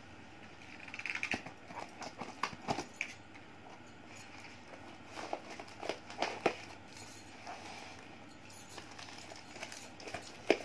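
A parcel being handled and opened by hand: irregular taps, knocks and short rustling or scraping of the packaging, with a sharper knock near the end.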